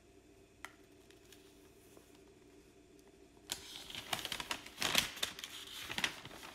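Paper instruction manual being handled, its thin pages flipped with a run of crisp rustling that starts about halfway through. Before that, only a faint tap.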